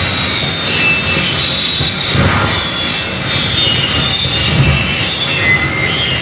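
Live electronic noise music: a dense, continuous wash of noise with squealing, wavering high tones over a pulsing low rumble. One high tone slides down near the end.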